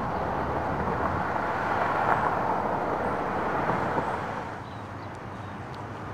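A vehicle going by on a road, its steady noise swelling to a peak about two seconds in and fading after about four and a half seconds.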